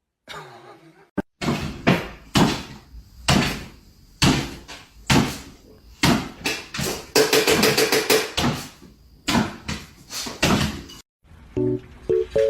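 A run of loud, sharp knocks or beats, roughly one or two a second at an uneven pace, with music under them. About a second before the end it cuts abruptly to plucked acoustic guitar music.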